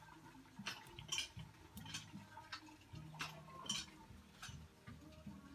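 Firewood crackling and popping in the open stove under the wok: irregular sharp ticks, a few each second, over a low background murmur.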